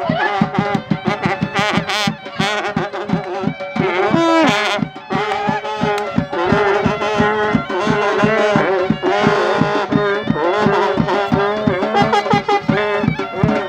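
Live Central Asian karnay band music: long straight karnay horns blowing over a wavering high melody and a fast, steady drum beat.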